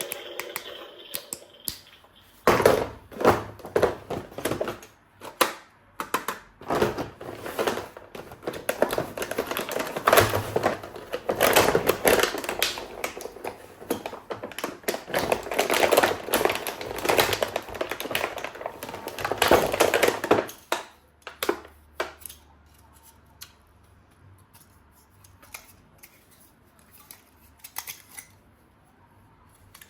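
Rapid clicking and clattering of hard objects being handled, dense for most of the stretch and then thinning to a few scattered clicks in the last third.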